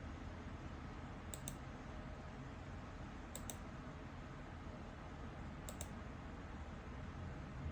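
Three sharp clicks from computer controls during setup, each a quick double click, about two seconds apart, over a steady low hum.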